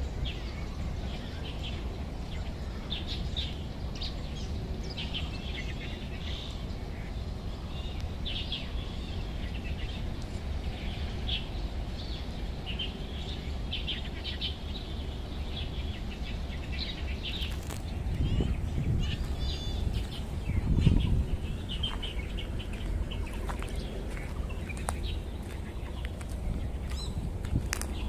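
Birds chirping, with many short calls scattered through, over a steady low rumble that swells briefly about two-thirds of the way in.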